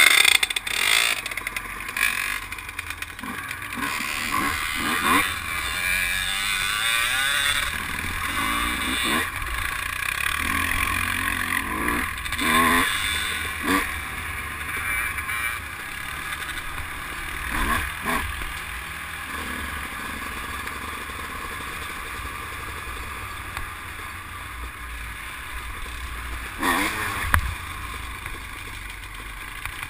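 ATV engine running at low speed over a rough, rocky trail, with a few sharp knocks and rattles as it goes over bumps.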